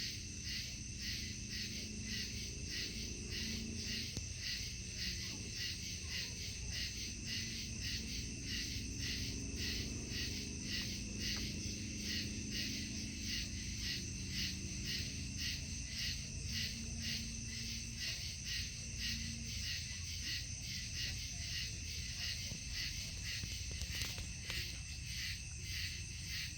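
Night insects chirping in a steady rhythmic pulse, about two or three pulses a second, over a steady low hum.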